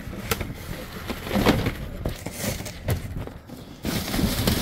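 Cardboard boxes and metal cookie tins being shifted and stepped on among dumpster debris: rustling with a few knocks, the loudest about a second and a half in.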